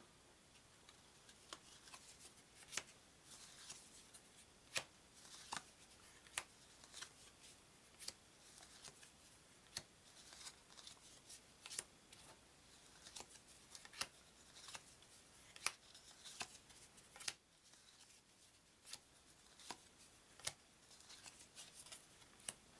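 Faint, irregular snaps and slides of stiff card-stock game cards being handled one at a time and laid onto a pile, roughly one sharp tap a second.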